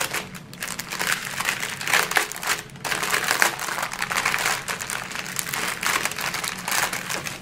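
Clear plastic bags crinkling and rustling as they are handled continuously: a strip of small zip bags of round diamond-painting drills being pulled out of its outer plastic bag.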